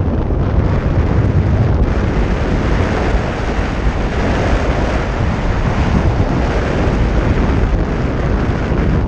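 Airflow of a paraglider in flight rushing and buffeting over an action camera's microphone: loud, steady wind noise, heaviest in the low end.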